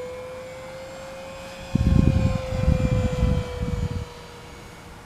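Electric motor and propeller of an FMS Cessna 182 1.5 m RC plane whining steadily in flight, its pitch rising slightly and then falling as it passes. About two seconds in, a loud low rumble lasting around two seconds covers it.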